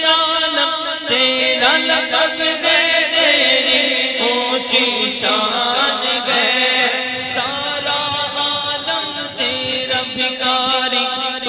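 An Urdu naat, a devotional song in praise of the Prophet, playing as background music: one voice sings long, winding notes without a break.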